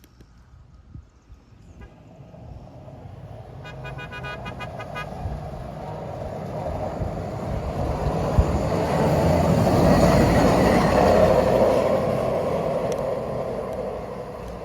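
Hi-rail truck horn sounded in a quick series of short toots about four seconds in. Then the truck rolls past close by, its running noise rising to a peak about ten seconds in and fading away.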